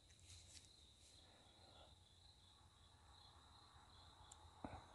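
Faint, steady trilling of crickets in the night woods, with a faint rustle about half a second in and a single short knock near the end.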